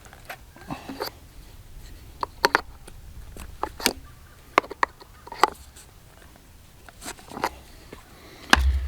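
Scattered light clicks and knocks at irregular intervals, a few with a brief ring: handling noises while working on gate hardware.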